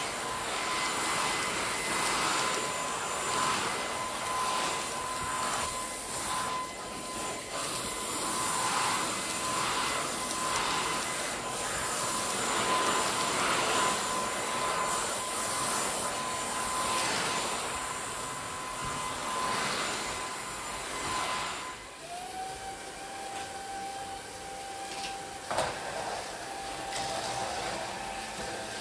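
Cordless stick vacuum cleaner running, with a steady motor whine under a suction hiss that swells and fades every second or two. A little after 20 s the sound gets quieter and the whine settles to a lower note, and there is a single click a few seconds later.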